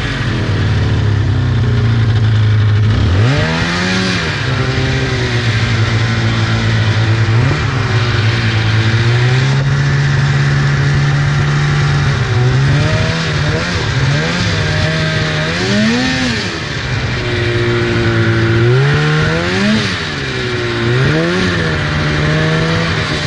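2004 Polaris RMK 800 snowmobile's two-stroke twin engine running hard through snow, its pitch rising and falling with the throttle: a climb about three seconds in, then repeated ups and downs from about thirteen seconds on, around sixteen, twenty and twenty-one seconds.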